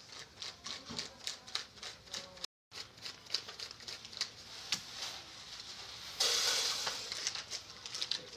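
Hundred-dollar bills being counted by hand, each bill flicked with a short papery snap, a few a second. The sound cuts out briefly about two and a half seconds in, and a louder steady hiss joins about six seconds in.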